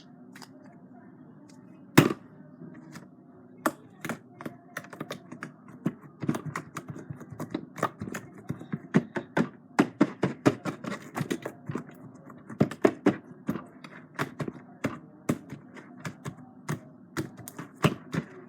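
Slime worked by hand, giving a run of sharp, irregular clicks and pops, several a second, with one louder snap about two seconds in and the clicking busiest in the second half.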